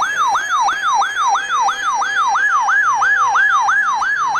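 Weather radio's electronic siren alert, a loud tone sweeping up and down about three times a second. It announces an incoming severe weather warning.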